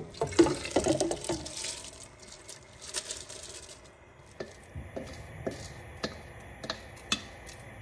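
Soaked lentils and their water pouring out of a plastic bowl and splashing into a pot of broth, followed by a spatula scraping the bowl, with scattered sharp clicks and taps as the last lentils are knocked out.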